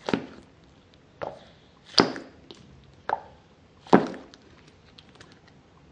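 Goo-filled rubber fried-egg squishy toy squeezed in the hand: five short squelches about a second apart.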